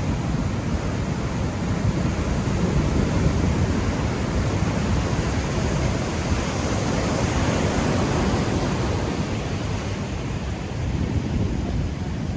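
Large ocean surf breaking and washing, with wind buffeting the microphone in a steady low rumble. The hiss of the wash swells about halfway through, then eases.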